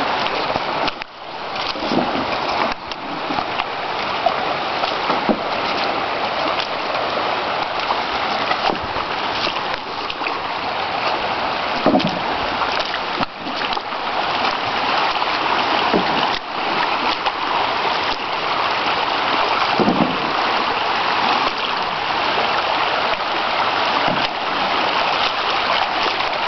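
Shallow river rushing steadily over a stony riffle, with a few short louder sounds over it.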